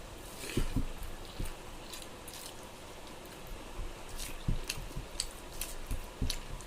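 Close-up mukbang eating sounds: chewing and biting on pork and rice, with irregular wet smacks and clicks of the mouth.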